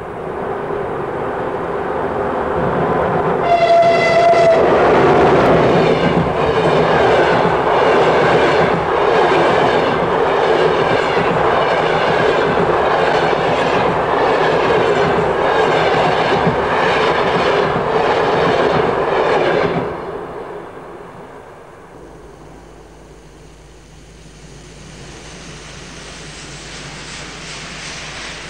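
A train passing at speed: the locomotive's horn wails briefly about four seconds in, then the carriage wheels clatter over the rail joints in a steady beat of about one a second for some fifteen seconds before the sound drops away sharply. A quieter steady rumble with a low hum then builds toward the end.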